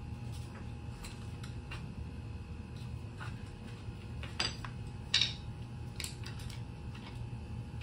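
Metal clinks and taps of a hand tool working at the base of a steel vault door, scattered through, with two louder sharp clinks about four and a half and five seconds in. A steady low hum underneath.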